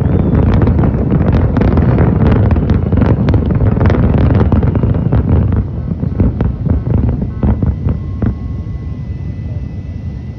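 Large fireworks display at its close: a dense, continuous barrage of bangs and crackles over a heavy low rumble. About halfway through it breaks off into a few scattered bangs, then the rumble fades.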